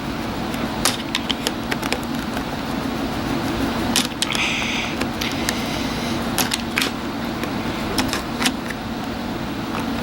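Scattered small clicks and taps of a screwdriver and hands on the plastic and metal parts of an RC truck's drivetrain as a stubborn screw is worked loose, with a brief scratchy rasp about four seconds in. A steady low hum runs underneath.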